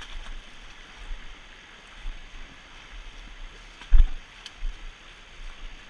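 Steady rush of river water, with a single loud thump about four seconds in.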